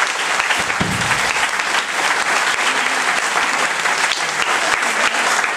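Audience applauding, dense steady clapping from a small crowd in a room, with one low thump about a second in.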